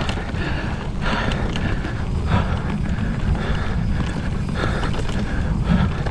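Mountain bike descending a downhill trail at race speed: tyres on dirt and rock, the bike rattling and clattering over rough ground, with a heavy wind rumble on the microphone.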